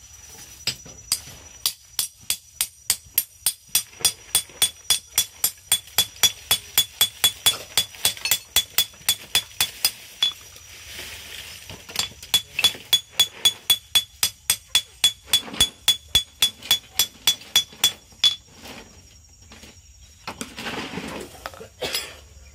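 Hand hammer striking a steel wangkil (grass-knife) blade laid on a steel sprocket used as an anvil: a fast, even run of ringing metal-on-metal blows, about three a second, pausing briefly about ten seconds in before a second run.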